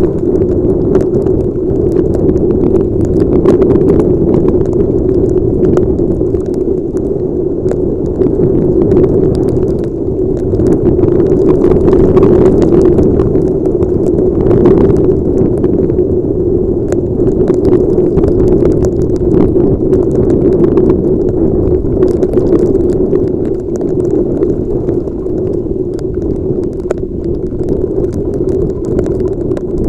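Steady, muffled rush of wind and rain on a helmet-mounted camera's microphone while riding in heavy rain, sprinkled with small taps.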